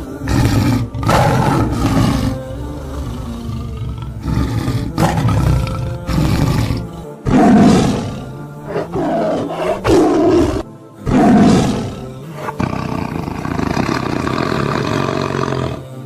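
Lions roaring and grunting in a series of loud separate calls with short gaps between them.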